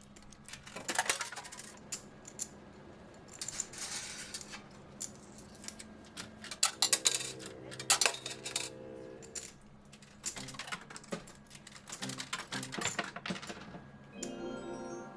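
Casino ambience without voices: repeated clatters of coins dropping and jingling in bursts, with short electronic slot-machine tunes sounding twice, the second time near the end.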